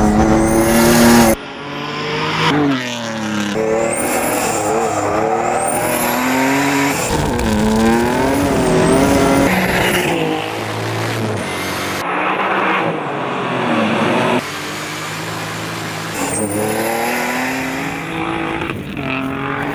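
Race-prepared Hyundai Genesis Coupe's V6 engine at full throttle, revving up and dropping back over and over as it shifts gears through the corners. The sound jumps abruptly several times from one stretch of driving to another.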